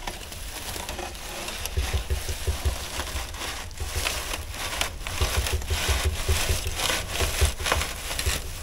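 Dry straw bird's nest being pulled out of an aluminium wing bay by a gloved hand: a continuous crackling and rustling of straw and paper, with many small clicks and knocks.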